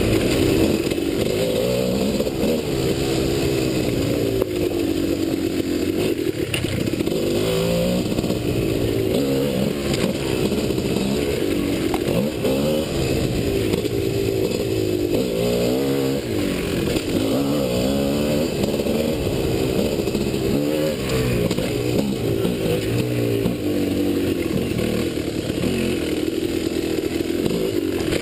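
Dirt bike engine, ridden hard, revving up and dropping back over and over as the throttle is worked.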